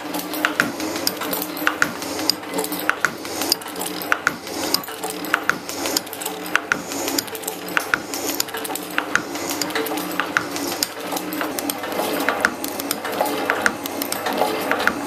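Metal shaping machine running, its ram stroking a cutting tool back and forth across a high-tensile 431 stainless steel bar, with a sharp click repeating at an even rhythm on each stroke over the steady drive noise.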